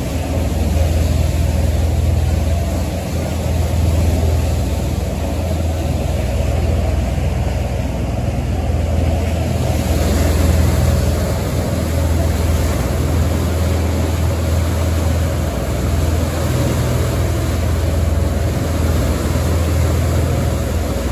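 A ferry's engines running steadily with a deep drone, over the rushing noise of the churning wake behind the boat.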